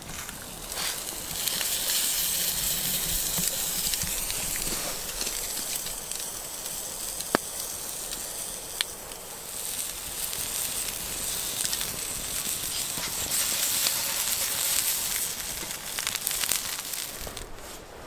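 Meat frying in a pan over a campfire: a steady sizzling hiss that swells in two long spells, with two sharp pops a second and a half apart near the middle.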